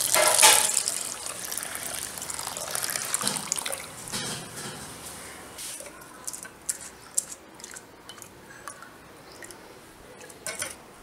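Water poured from a stream into a steel bowl of dry split dal, splashing onto the lentils for the first few seconds before trailing off. After that come sparse drips and small clicks as soaked dal drains in a steel mesh strainer held over a pan.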